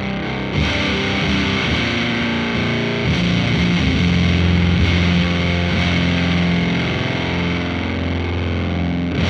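Electric guitar through a FuzzHugger FX Lab Ratchet fuzz pedal into a Laney VC30 valve amp, playing heavily fuzzed chords that ring on. New chords are struck about half a second in and again about three seconds in. Major chords come out with discordant intermodulation from the fuzz.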